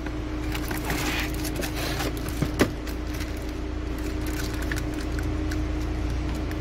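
Light rustling and a couple of small clicks from old and new car cabin air filters and their plastic wrapping being handled and compared, over a steady low hum.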